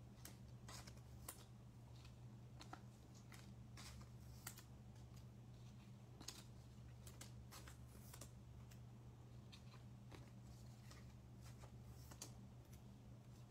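Faint, scattered clicks and light scuffs of baseball cards being handled and set down on a table mat, over a steady low hum.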